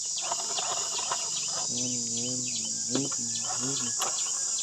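Steady high-pitched insect chorus, with short murmured voice sounds in the middle.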